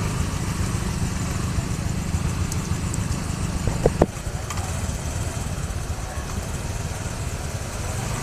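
Motor vehicle engines running in a flooded street: a steady low rumble under a haze of noise. A single sharp knock comes about four seconds in, after which the rumble is a little quieter.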